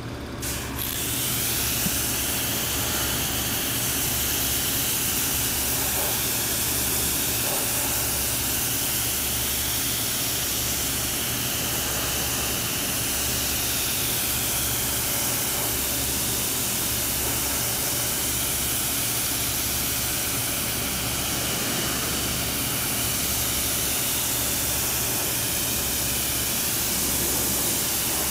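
Pressure washer (Kärcher K3 Silent) water jet hissing steadily as it sprays the steel counterweight of a Caterpillar 307D mini excavator, starting about half a second in. A low steady hum runs underneath.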